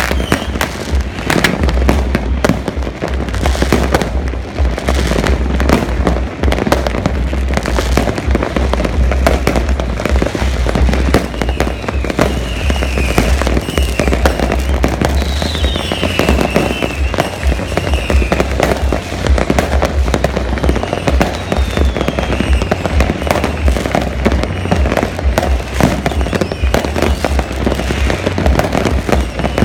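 Fireworks and firecrackers going off all across a city at once: a dense, unbroken crackle of bangs and pops. A few whistling rockets glide down in pitch around the middle.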